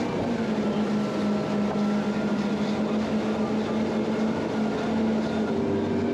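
Twin Mercury Verado 250 hp V8 outboard engines running steadily under way, a constant drone mixed with the rush of wind and water past the hull.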